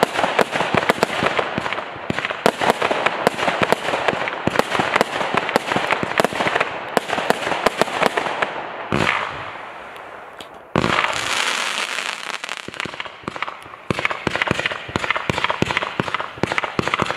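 Legion multi-shot firework cake firing: rapid volleys of launch shots and crackling star bursts. There is a brief lull about nine seconds in, broken by a sudden loud burst, before the rapid firing picks up again.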